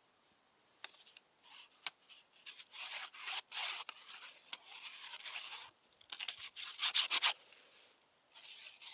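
A sheet of paper rustling and scraping as it is handled in the closed jaws of a pair of linesman's pliers, in irregular stretches with a few sharp clicks; it starts about a second in and dies down briefly near the end.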